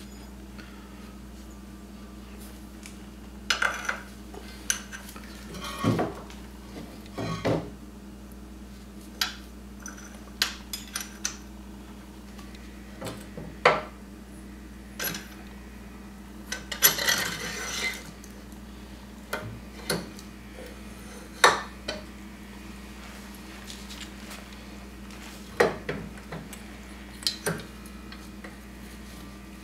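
Scattered metal clinks and knocks from a lower suspension A-arm and its bolts and washers being handled and fitted into a UTV's front frame, with a longer scraping rattle about 17 seconds in.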